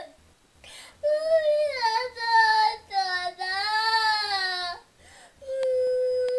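Young girl crying in long, high-pitched wails that bend up and down in pitch, then one steady held wail from about five and a half seconds in. The crying is acted, not real distress.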